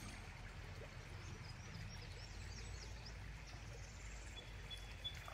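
Quiet outdoor ambience: a steady low rumble with faint, scattered distant bird chirps, and a faint thin whistle near the end.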